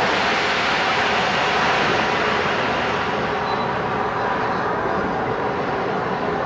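Bulleid light Pacific steam locomotive venting steam with a loud, steady hiss, strongest in the first couple of seconds.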